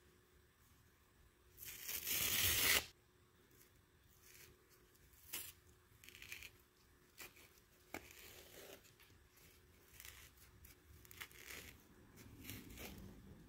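A pink kitchen sponge with a purple scouring-pad layer is torn apart by hand. There is one long, loud rip about two seconds in. After it come quieter, short tearing and crackling sounds as the fibrous pad is peeled away from the sponge.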